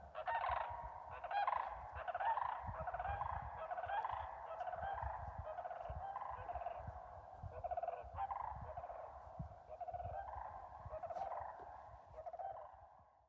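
A flock of sandhill cranes calling: many rolling, rattling bugles overlap in a continuous chorus that fades out near the end.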